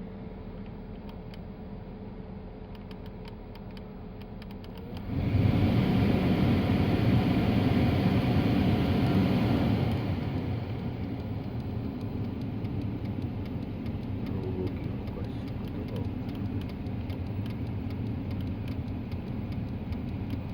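The removed climate-control flap servo motor of a Porsche Cayenne runs on its connector with a faint, steady, slightly falling whine that stops about five seconds in. A loud, steady rushing noise then starts suddenly, easing to a lower steady level about five seconds later.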